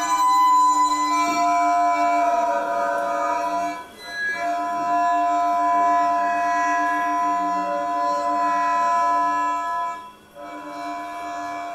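Long strings of a sound installation stroked by hand along their length, giving a sustained drone of several steady overlapping tones. The sound dips briefly about four seconds in and again near ten seconds, then resumes.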